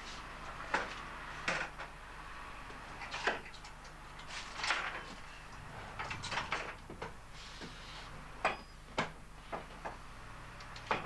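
Irregular clicks, taps and short scrapes of hand tools and metal parts being worked on at a bench vice, over a faint steady hum.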